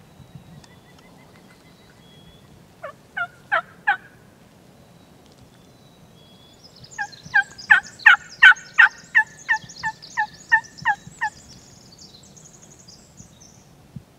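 Turkey yelping: a short run of four sharp, descending notes, then after a pause a longer, louder series of about a dozen evenly spaced yelps, with fainter higher calling trailing after it.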